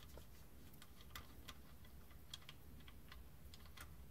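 Near silence with a few faint, irregular light clicks as the transfer case drain plug on a 2017–2022 Acura MDX, already cracked loose, is turned out by hand.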